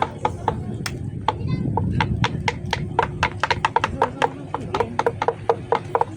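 A steady rhythm of sharp knocks, about four to five a second, growing more distinct toward the end, over a murmur of crowd voices.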